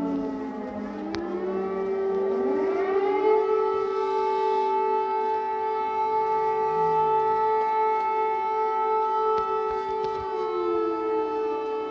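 Several civil-defence air-raid sirens sounding together across the city. Their pitch rises over the first few seconds, holds steady, then begins to fall near the end. This is an air-raid alert warning of a possible missile attack.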